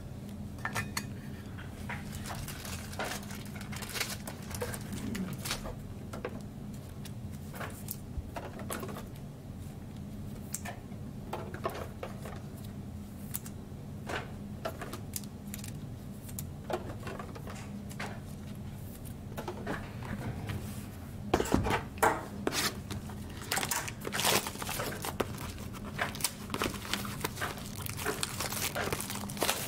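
Trading-card packs and cards being handled: scattered crinkles, rustles and the tearing of pack wrappers, with short taps and clicks as cards are sorted. The sounds come irregularly, with a louder cluster of sharp crinkles and clicks about three-quarters of the way in, over a faint steady hum.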